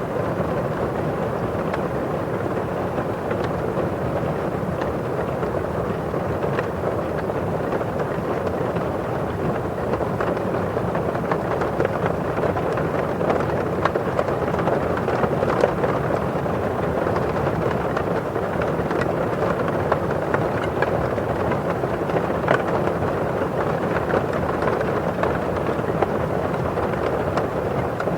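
Steady rain on a window pane: an even rush of falling rain with scattered sharper taps of drops on the glass.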